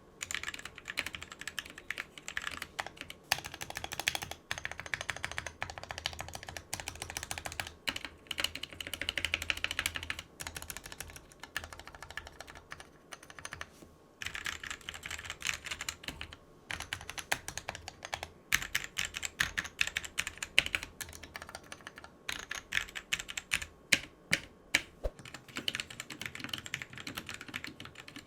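Fast, continuous typing on a mechanical keyboard with pre-lubed Gateron Cap Yellow linear switches, a dense run of key clicks with a couple of brief pauses.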